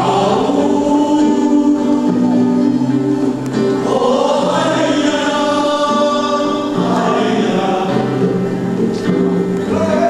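Music with a group of voices singing together over long held chords; the singing grows fuller around the middle.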